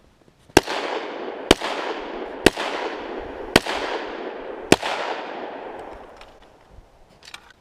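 Five gunshots from a 9mm JR Carbine, fired about a second apart, each followed by a long rolling echo that fades out after the last shot.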